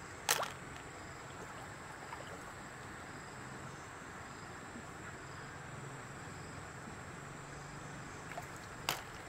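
Shallow stream water flowing steadily. Two brief sharp sounds, one just after the start and one near the end, stand out as the loudest moments.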